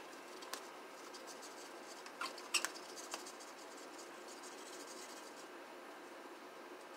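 Faint rustling and scratching of a bag of powdered beignet mix being tipped and shaken into a glass measuring cup, with a few sharp clicks, the loudest about two and a half seconds in.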